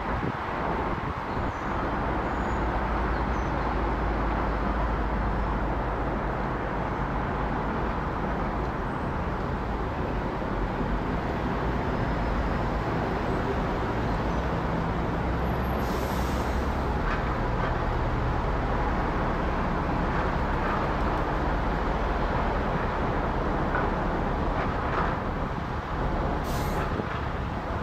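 Airbus A380 airliner on approach to land, passing nearly overhead, its four jet engines heard as a steady low rumble of jet noise.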